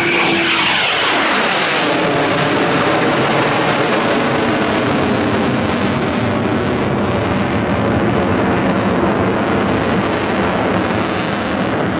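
Eurofighter Typhoon's twin EJ200 turbofan jet engines heard in a pass: the pitch sweeps down over the first second or two as the jet goes by, then a loud, steady jet rumble carries on.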